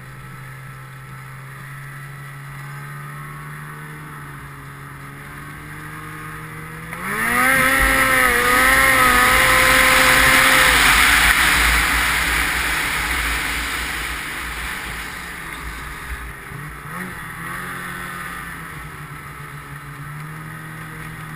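Ski-Doo 800R's two-stroke twin running steadily at low speed, then revving up sharply about seven seconds in and running hard with rushing wind noise. It eases off slowly over several seconds, gives a small blip of throttle, and settles back to a steady low run.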